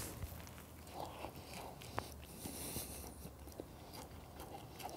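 A man chewing a mouthful of burger: faint mouth and chewing sounds with scattered small clicks, one sharper click about two seconds in.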